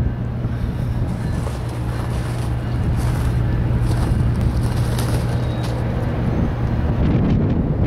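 Steady low drone of a distant Norfolk Southern diesel locomotive, with wind buffeting the microphone.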